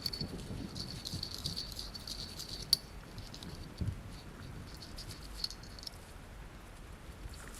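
Light, rapid clicking and ticking of small metal parts being handled, with a faint metallic ringing, and one sharp click just under three seconds in.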